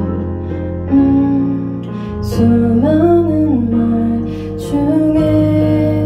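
Slow, tender ballad played live on a Kurzweil SP2X stage piano, with sustained chords that change about a second in, again around two and a half seconds, and near five seconds. A woman's voice holds long notes over it, one bending up and back down near the middle.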